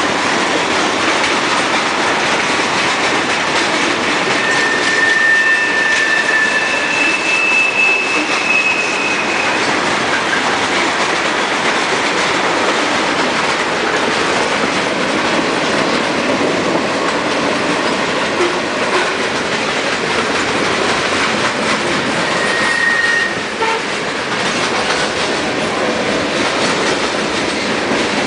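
Freight cars of a passing freight train rolling by: a steady noise of steel wheels running on the rails. Brief high wheel squeals come in, two overlapping about five seconds in and a short one near the end.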